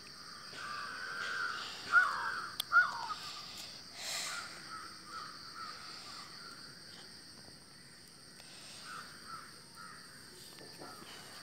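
A bird calling several times in short calls, the two loudest about two and three seconds in, over a steady high hiss.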